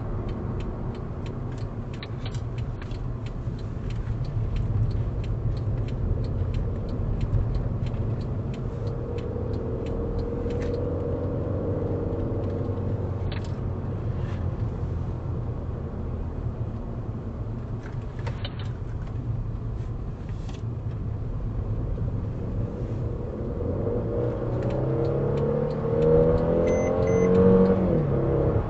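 School bus engine and automatic transmission heard from inside the bus: a steady drone while cruising, with scattered light clicks. In the last few seconds the transmission kicks down and the engine note climbs and grows louder as the bus accelerates.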